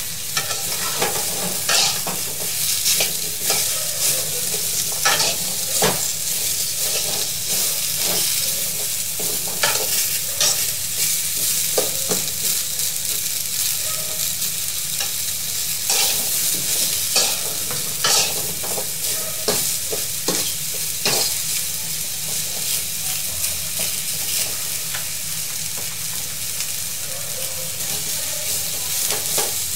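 Cauliflower and broccoli florets stir-frying in oil in a metal karahi: a steady sizzle, with a spatula scraping and knocking against the pan at irregular moments as the vegetables are turned.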